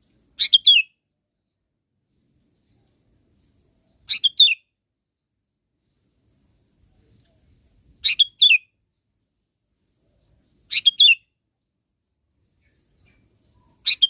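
Sooty-headed bulbul (kutilang) calling: five short, bright chirping phrases about every three to four seconds, with silence between them. This is the call used as a lure to draw other bulbuls in.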